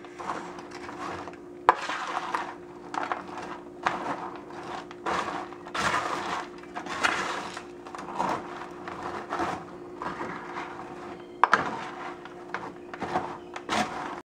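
Wooden spatula turning and tossing crisp fried murukku sticks coated in jaggery syrup in a metal baking tray, spreading the syrup evenly. It makes repeated crunchy rustling and scraping, with sharp knocks against the tray about two seconds in and again near the end.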